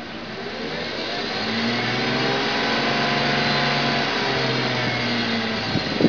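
BMW E36 328i's M52 straight-six revved slowly up and back down, with a whine from the engine bay whose pitch rises and falls with the revs. The owner suspects the belt tensioner, a pulley, the alternator or the power steering pump. A short knock sounds near the end.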